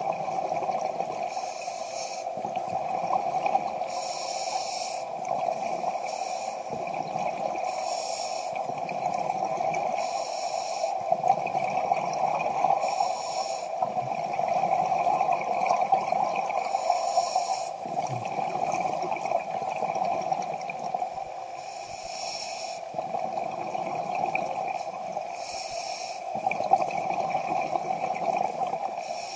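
Scuba diver breathing through a regulator underwater: a hissing breath and bubbling exhaust roughly every three to four seconds, over a steady hum.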